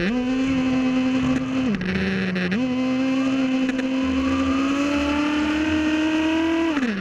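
Nitro engine of a Red Cat Racing Shockwave RC buggy running under throttle, heard up close from on board. Its note rises as the throttle opens, dips briefly about two seconds in, then climbs steadily as the buggy accelerates and falls away as the throttle is released at the end.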